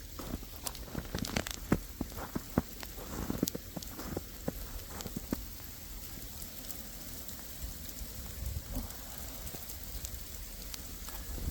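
Sleet and freezing rain falling with a steady patter, with sharp irregular ticks of pellets striking close by, thickest in the first half and thinning out after that.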